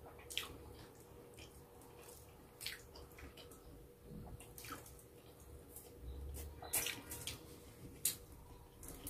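Quiet, wet eating sounds: scattered mouth smacks and chewing, with tender roast chicken being pulled apart by hand.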